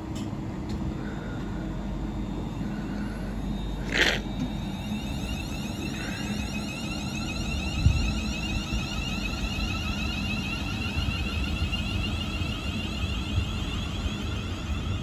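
London Northwestern Railway Class 350 Desiro electric multiple unit pulling away and accelerating, its traction motors whining in several rising tones from about six seconds in over a steady low rumble. A brief hiss about four seconds in and a low thump near eight seconds.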